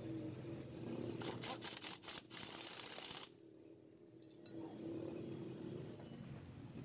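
Workshop handling sounds over a low steady hum: a quick run of sharp clicks and light knocks about a second in, then about a second of hiss-like noise that stops abruptly.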